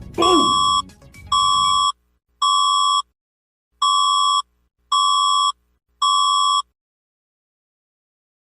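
Six identical electronic alert beeps, each about half a second long and about one a second, with a harsh buzzy tone. They begin an emergency-alert sequence. A short falling swoop and a low rumble sound under the first two beeps, and the beeps stop about two seconds before the end.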